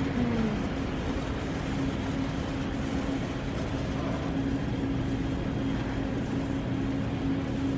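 Loaded luggage trolleys rolling across a hard terminal floor: a steady rumble with a low, even hum running under it.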